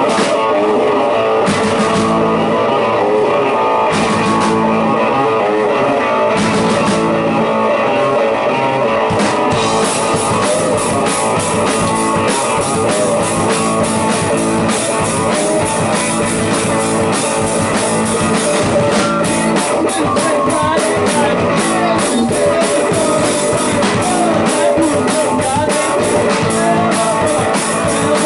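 Instrumental intro of a rock song: guitar over a few accented drum hits spaced about two and a half seconds apart. About ten seconds in, the full drum kit comes in with a steady, driving beat.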